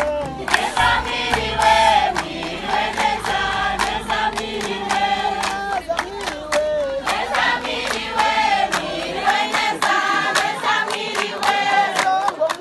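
A group of voices singing together in chorus, with sharp percussive hits through the song.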